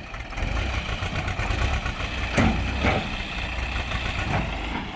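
Swaraj 724 XM tractor's two-cylinder diesel engine running steadily under load as it pulls a fully loaded trolley, with a few sharp knocks in the middle of the stretch.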